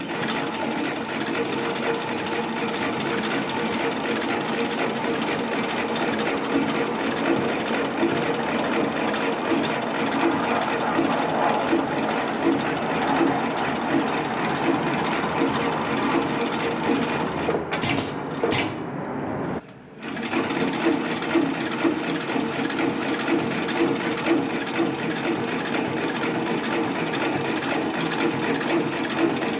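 HIGHTEX 7204MD twin-needle, extra-heavy-duty lockstitch sewing machine running steadily as it sews. It stops briefly about twenty seconds in, then starts sewing again.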